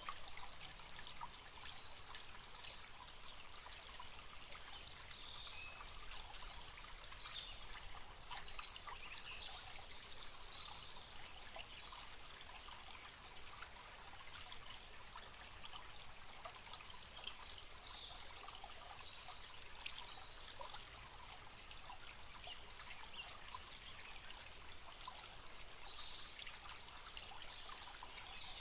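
Forest stream flowing steadily, with small birds chirping at intervals over the water.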